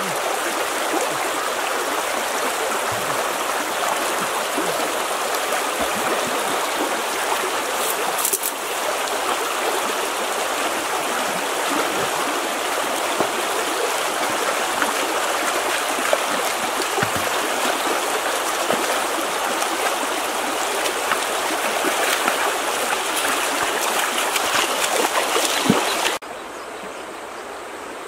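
Shallow rocky stream running steadily over stones, with water babbling and rushing. Near the end the sound drops suddenly to a softer, quieter flow.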